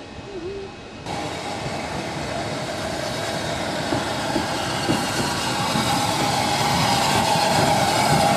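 Steam train hauled by an SECR H class 0-4-4 tank locomotive approaching along the line, its running sound growing steadily louder from about a second in, with a few knocks from the wheels.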